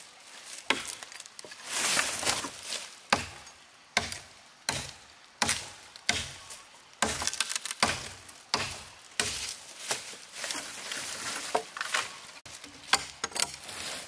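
Dry firewood being chopped: sharp strikes and cracks of wood about once a second, irregularly spaced, with rustling between strokes.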